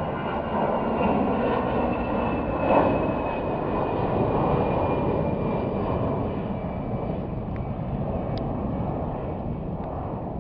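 Airbus A320 airliner's jet engines climbing out after takeoff: a steady rumble with a faint whine that slowly falls in pitch, the whole sound fading gradually as the plane moves away.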